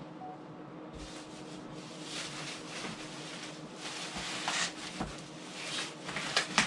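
Plastic stretch wrap rustling and crinkling as it is pulled off flat-packed MDF cupboard panels, starting about a second in, with a few sharper crackles near the end.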